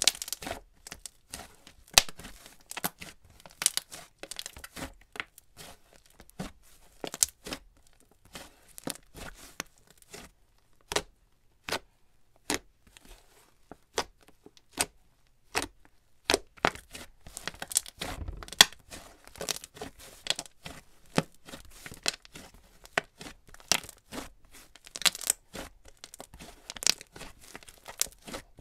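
Slime being kneaded, folded and squeezed by hand: a dense, irregular run of sticky pops and crackles.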